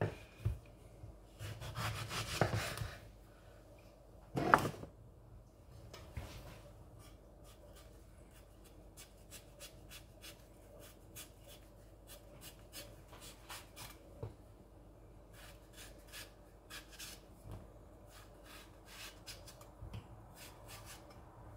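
A chef's knife peeling the skin off a ripe mango: many faint, short scraping strokes of the blade through the skin. In the first five seconds come a few knocks on the wooden cutting board, the loudest about four and a half seconds in.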